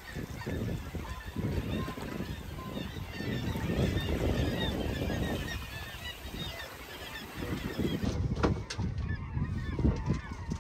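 A large flock of seabirds calling over one another in many short, overlapping honking cries, over a heavy low rumbling noise. A few sharp clicks come near the end.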